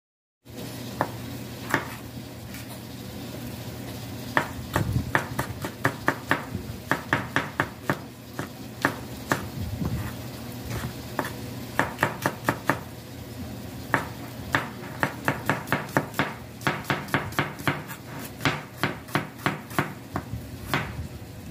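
Kitchen knife slicing onion and green onions on a wooden cutting board: quick runs of sharp knocks as the blade strikes the board, several a second, broken by short pauses. A steady low hum runs underneath.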